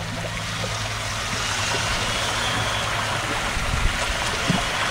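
Steady churning and splashing of water as a 4WD electric RC monster truck's spinning tires paddle it through the water, with a faint high whine from its electric motor.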